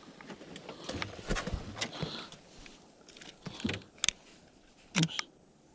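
Canon EOS DSLR camera being handled: rustling and scattered light clicks, with two sharper clicks about four and five seconds in.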